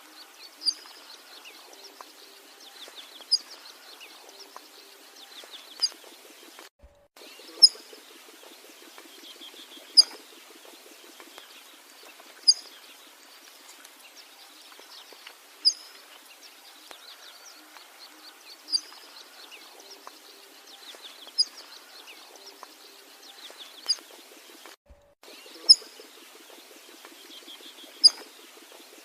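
A bird giving a short, sharp, high call about every two and a half seconds, louder than a steady background of fainter bird chatter. The sound drops out completely for a moment twice.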